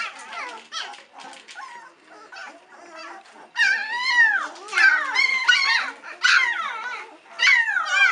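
Three-week-old White Swiss Shepherd puppies whining and crying, several at once, in high cries that rise and fall in pitch: hungry pups calling for their mother to come back and feed them. The cries are fainter and sparser for the first few seconds, then grow loud and frequent from about three and a half seconds in.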